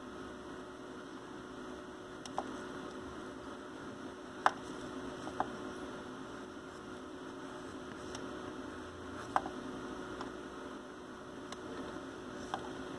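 A pencil tracing over baking paper taped to a computer screen: a handful of short, sharp clicks and taps as the tip meets the screen, over a steady hum.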